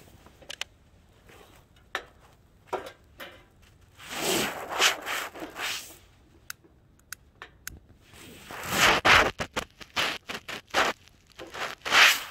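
Handling at a two-burner propane camp stove: sharp clicks and short scrapes, with louder scraping and rustling bursts, as the burner is lit and a metal mug is set on the grate.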